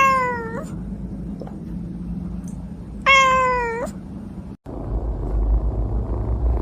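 A cat meowing twice, about three seconds apart, each meow a short call that falls slightly in pitch. Near the end, after a cut, a low rumble takes over.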